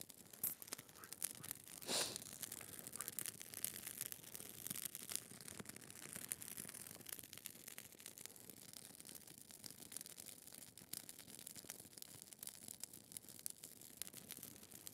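Open fire of dry twigs and brush crackling with a steady patter of small pops, with one louder crack about two seconds in.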